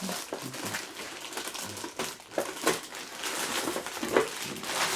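Packaging being handled during an unboxing: crinkling and rustling with irregular small clicks and knocks.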